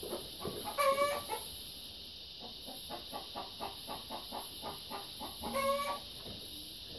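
Two short farm-animal calls, each held on one steady pitch, one about a second in and one near six seconds, with faint light clicking and rustling between them.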